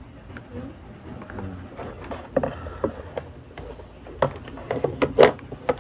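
Irregular clicks, knocks and rustles from handling the opened plastic housing, circuit board and wiring of a Bluetooth speaker, with the loudest knocks near the end.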